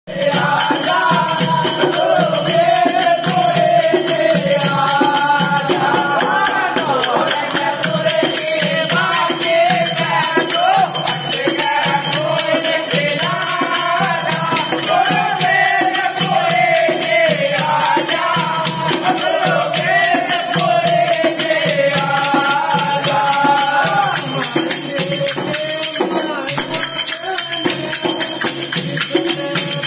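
Devotional folk song (bhajan) sung over steady rattling hand percussion, with the shaking or clapping keeping an even beat under the singing.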